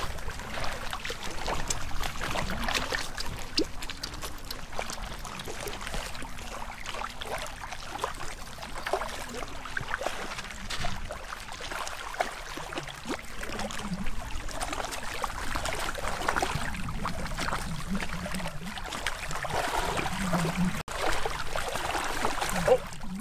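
River water running, with many short splashes and clicks scattered through it, while a hooked rainbow trout is played on a fly rod rigged as a casting rod.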